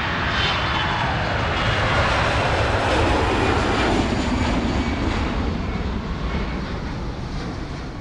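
Twin-engine jet airliner taking off and climbing away: a loud rushing engine noise whose pitch falls steadily as it passes, fading over the last few seconds.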